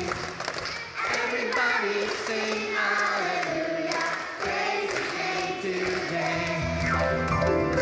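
Children's choir and congregation singing a lively alleluia hymn. The low bass accompaniment drops away for most of it and comes back in near the end.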